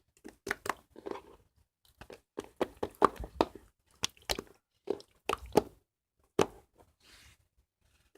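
Toy slime being squished and worked in the hands, giving irregular sharp sticky pops and crackles.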